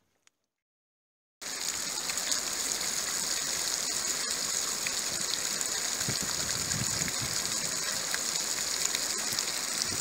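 Small bubbler fountain jet gushing up and splashing back into a pool, a steady hiss of falling water that cuts in suddenly after about a second and a half of silence.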